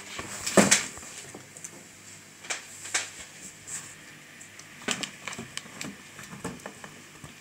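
Scattered light knocks and clicks, the loudest about half a second in, with smaller ones around three and five seconds in.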